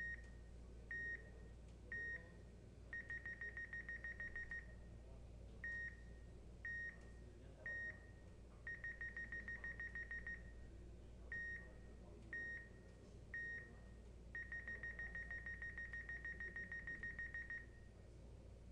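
Calibration countdown beeps from motion-capture software, a single high electronic tone. Three short beeps a second apart are followed by a fast run of beeps lasting two to three seconds while the pose is captured, and the cycle repeats three times, once for each calibration pose.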